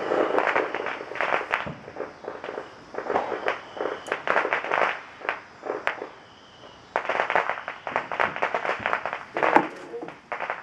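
Drawknife shaving green black locust wood in quick, short, light strokes, several a second. The strokes come in two runs with a pause of about a second and a half in the middle.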